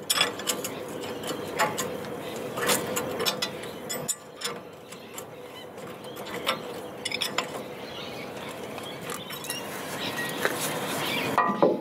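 Irregular metallic clinks and ticks of a spanner working the bolts on a boat rudder's bolted flange as they are started and tightened.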